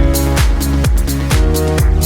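Electronic dance music with a steady beat, a thudding kick about twice a second.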